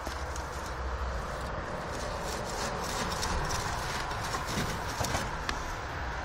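Steady outdoor noise with a low rumble, broken by scattered light knocks and taps.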